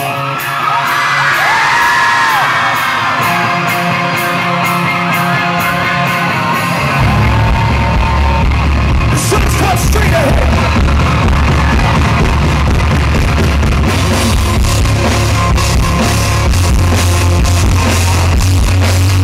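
Live rock band played loud through the PA and recorded with distortion: electric guitars open the song with high yells over them, then bass and drums come in hard about seven seconds in, with the lead vocal over the full band.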